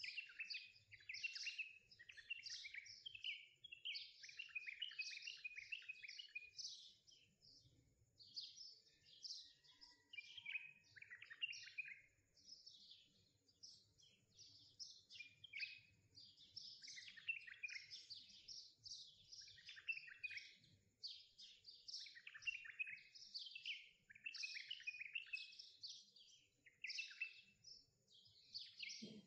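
Small songbirds chirping and twittering: runs of quick, high, falling chirps lasting a second or two each, with short gaps between them.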